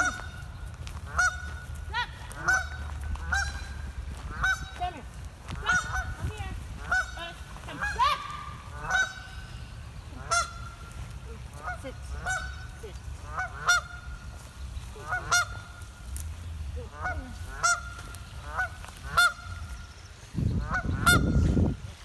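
Canada goose giving repeated alarm honks, short calls about once a second, at a dog chasing it. A loud low rumble comes near the end.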